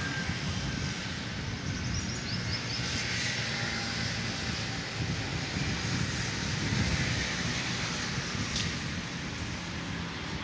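Steady hum of road traffic from a nearby street, mixed with wind.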